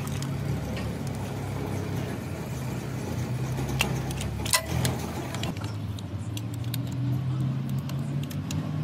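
An engine running steadily at idle, with sharp metal clinks and small jangles over it, the loudest a couple of clinks about four seconds in.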